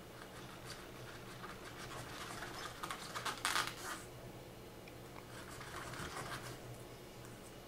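Small knife blade scraping and cutting into a wine cork in short scratchy strokes, loudest about three to four seconds in, while a V-shaped notch is carved.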